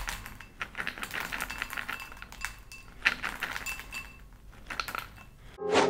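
Dry protein cheese puffs pouring from a plastic jar into a ceramic bowl: a patter of light clicks and rattles as they tumble onto the bowl and each other, coming in several short spurts.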